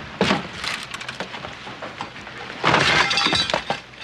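A sharp crack near the start, then about a second of loud crashing and shattering glass from roughly the three-second mark.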